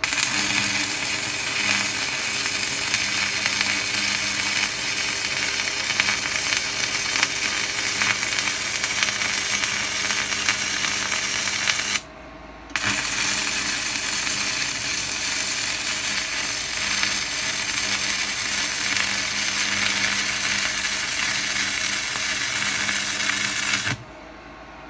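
Stick (MMA) welding arc from a Weldinger EW 140 Mini inverter set to its maximum 140 A, burning steadily with a dense crackle as two weld beads are laid. The arc breaks off briefly about halfway, strikes again, and stops shortly before the end.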